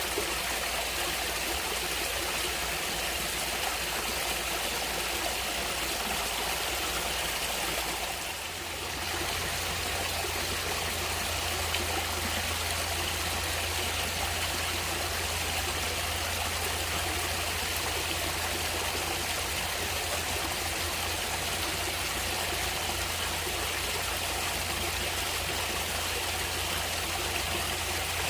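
Stream water flowing and trickling in a steady rush, with a brief dip in level about eight seconds in.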